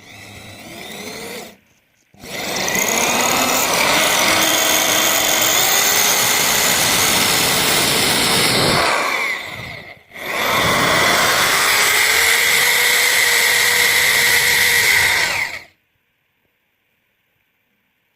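Electric power tool running: a short weak burst at the start, then two long runs of about seven and five seconds, each spinning up and winding down in pitch as it stops.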